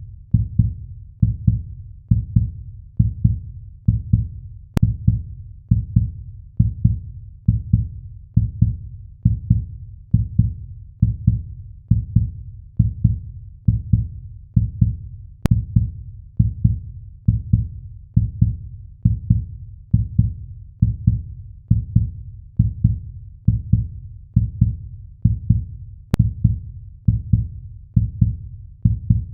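Heartbeat sound effect: low, steady thumps at a resting pace of about one beat a second, with a faint click about every ten seconds.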